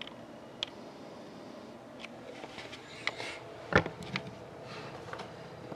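Handling noises on a tabletop: scattered light clicks and brief rustles, with one louder knock a little past halfway.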